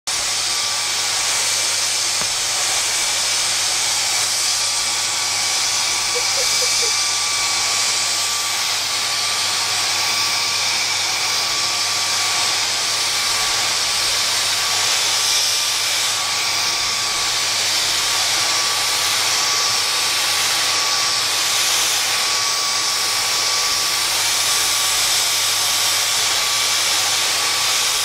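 Vacuum cleaner running steadily, a rushing hiss with a steady high whine, its brush nozzle held against a cat's fur.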